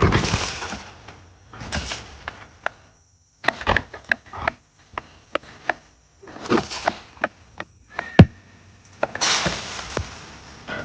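Trapped wild hogs knocking against the panels of a hog trap: a string of sharp knocks and bangs, the loudest one a little after eight seconds in, between short rushes of noise from the agitated animals.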